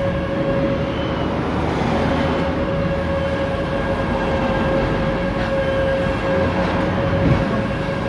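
Steady machine drone with a constant whine, from running machinery.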